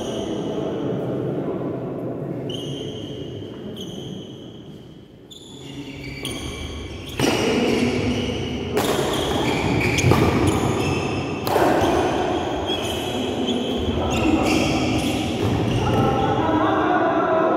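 Badminton play on an indoor court: sports shoes squeak sharply on the court floor again and again, and a few sharp racket hits on the shuttlecock come in the second half.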